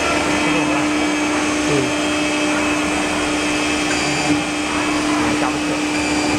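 CNC wood router running steadily while its spindle and boring head work a wood panel: an even machine drone with a constant whine.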